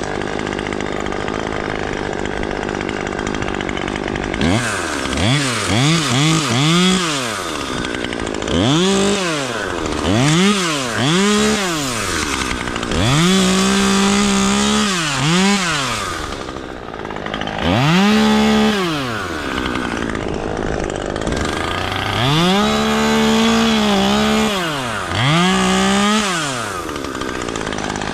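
Husqvarna 540iXP battery chainsaw's electric motor run in repeated bursts, its whine rising, holding briefly and falling away with each pull and release of the trigger; the first few seconds hold only a steady hum before the saw starts.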